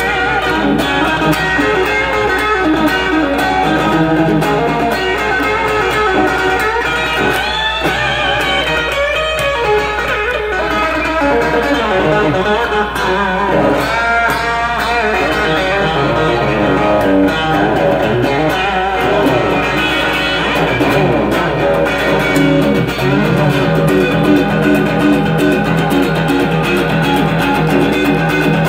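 Fender Stratocaster electric guitar played continuously, with notes that bend in pitch a few times.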